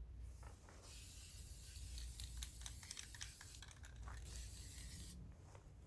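Black spray paint hissing in a long pass with a short break about two-thirds of the way through, mixed with scattered sharp clicks, as a light dusting is laid on a foam wolf target's tail.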